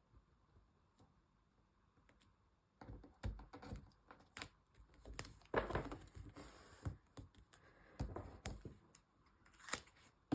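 Washi tape being laid and pressed onto a journal page: a run of light taps, scratches and paper rustles beginning about three seconds in.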